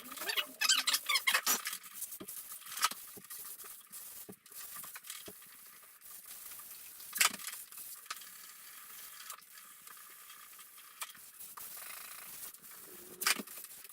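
Hand sanding with fine sandpaper, sped up: a thin scratchy hiss with a few sharp knocks. The first second or so has high, squeaky, wavering chirps.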